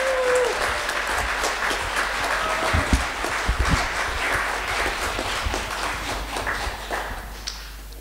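Audience applauding, the clapping dying away near the end.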